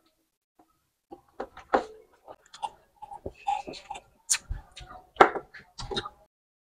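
Close-miked mouth sounds of eating fried corn and sipping cola through a straw: a run of short, irregular clicks and smacks that stop suddenly about a second before the end.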